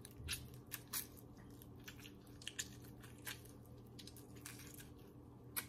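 Faint wet squelches and scattered short ticks as lemon halves are squeezed by hand, the juice dripping onto chopped cilantro.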